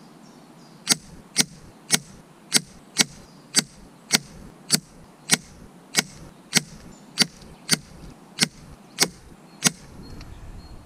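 Rapid string of about sixteen sharp shots from an FX Impact M3 PCP air rifle firing .177 slugs at a target, roughly two a second, in sped-up footage so that it sounds almost like a machine gun.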